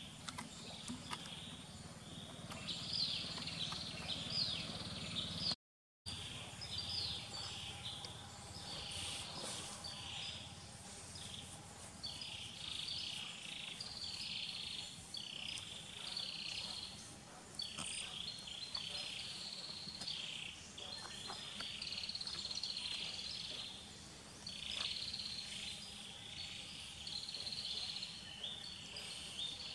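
Outdoor forest ambience with repeated high chirping calls, roughly one a second, that break off for a moment about six seconds in.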